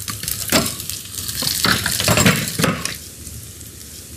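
Quartered radishes and mushrooms sizzling in oil in a stainless steel frying pan, with several knocks and scrapes of cookware during the first three seconds. After that it settles to a softer, steady sizzle.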